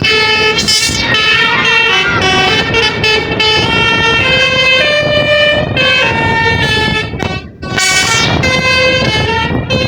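Telolet basuri bus horn, a set of air-horn trumpets switched by a DAV module, playing a melody of held notes that step up and down in pitch. There is a brief break a little past seven seconds, over a low engine and road rumble.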